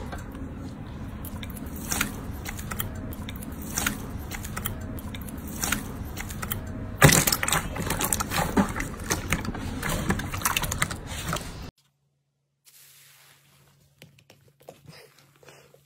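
Clear slime being pressed and squeezed by hand, giving sticky clicks and crackling pops over a steady hiss; the crackling grows thicker and louder from about seven seconds in. The sound drops off suddenly about twelve seconds in, and faint soft clicks of fluffy slime being pressed follow.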